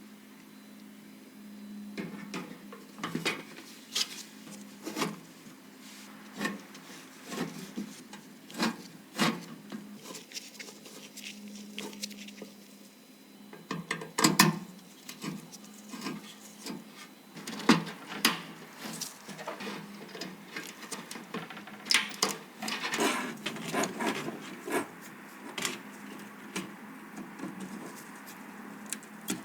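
Irregular clicks, taps and light knocks of PC parts being handled and fitted by hand, with a faint steady low hum underneath.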